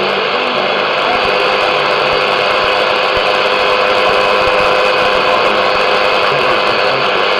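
Static hiss from an Eton field radio's speaker tuned to a weak, distant medium-wave AM station, with a faint steady whistle. The station's audio is all but buried under the noise.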